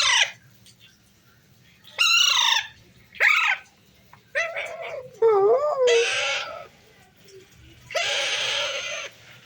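Pet parrot squawking in a series of about six loud, separate calls, some falling in pitch, one wavering, and a long harsh screech near the end.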